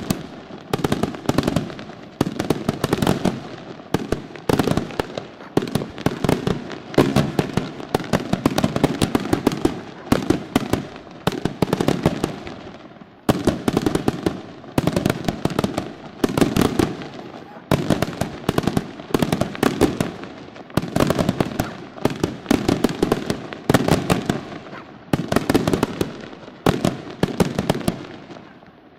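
Aerial fireworks display: shells bursting in rapid succession, a dense string of sharp bangs and reports that comes in waves about every one to two seconds.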